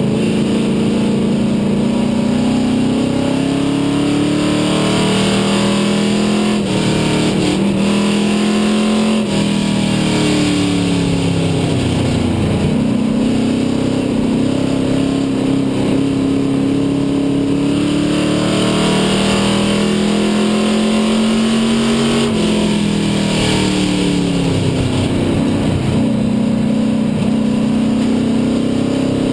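A racing stock car's engine at full race pace, heard from inside the cockpit. Its pitch climbs along the straights and falls away sharply when the driver lifts for the turns, twice, then builds again.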